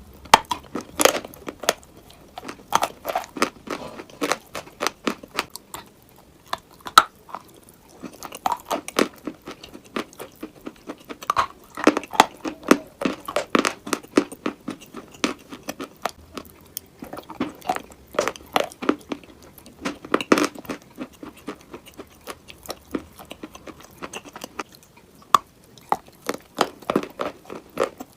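Close-up crunching and chewing of pieces of chalk or dried clay, with many sharp irregular cracks and crumbles in loose bursts.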